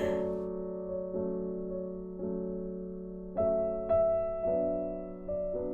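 Soft background piano music, slow notes struck about once a second and left to ring.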